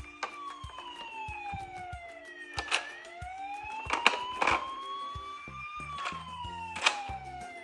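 Toy emergency-vehicle siren wailing, sliding slowly down and up in pitch about every two and a half seconds, over a looping tune. Sharp clicks and clacks of toy cars on the slope cut in several times, the loudest about four seconds in and near the end.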